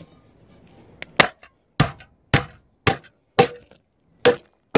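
Loud, repeated blows of a long-handled hammer on metal scrap: about seven sharp strikes roughly half a second apart, starting about a second in, some leaving a short metallic ring. The hammer is flattening brass salvaged from a scrap oil lamp so it takes less room.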